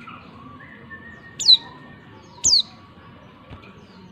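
Female white-eye (pleci) giving two short, sharp calls about a second apart, each sliding steeply down in pitch.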